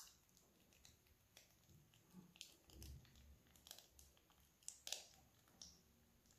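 Near silence, with faint soft crinkles and clicks from a plastic piping bag being squeezed as pastry cream is piped onto cake batter.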